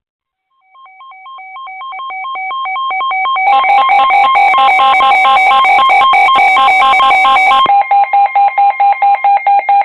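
Weather alert radios sounding their alarm for a new severe thunderstorm warning. An electronic beeping swells in loudness, thickens and gets loudest about three and a half seconds in, and ends in rapid beeps about four a second.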